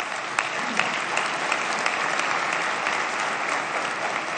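Applause from a large audience of seated members of parliament: many hands clapping together in a steady wash, starting abruptly at a rousing line of a speech, with a few sharper single claps standing out early on.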